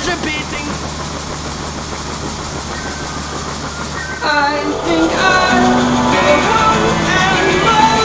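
Country song playing, quieter for the first four seconds over a steady low hum, then guitar and singing come back in about four seconds in.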